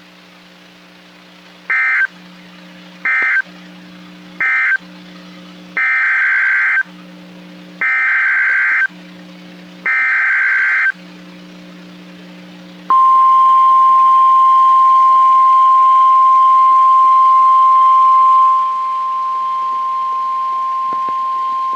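NOAA Weather Radio EAS/SAME data bursts: three short buzzy bursts, the end-of-message code closing the previous tornado warning, then three longer one-second bursts, the header of the next warning. After them comes the steady 1050 Hz warning alarm tone for about nine seconds, which drops somewhat in level a few seconds before it ends.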